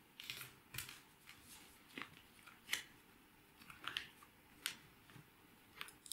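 A square of A4 paper being folded and creased by hand: short, faint crackles and taps of the paper, coming irregularly about every half second to a second.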